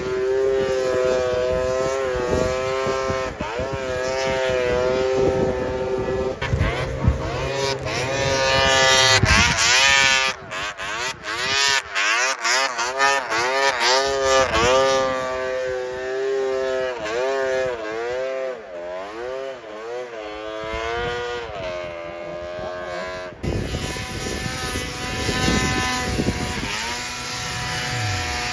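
Vintage snowmobile engine running hard, its pitch rising and falling over and over as the throttle is worked, choppy and uneven for a stretch in the middle. Near the end it drops to a lower, steadier note.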